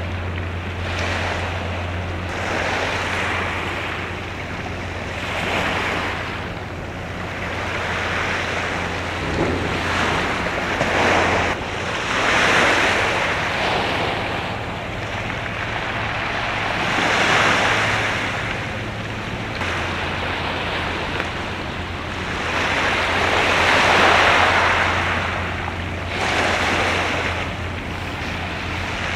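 Waves washing in irregular swells every few seconds, with wind on the microphone and a steady low hum underneath.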